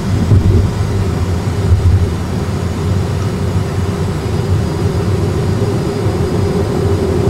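Steady low rumble of airflow and engines on an Airbus A320 flight deck on approach, with the landing gear extending.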